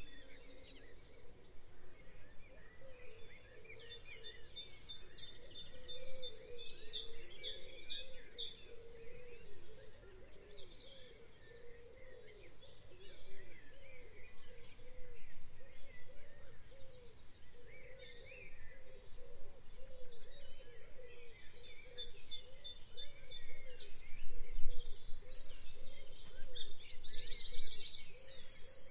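Songbirds singing in a spring chorus. Bright, fast trills of repeated high notes stand out twice, a few seconds in and again near the end.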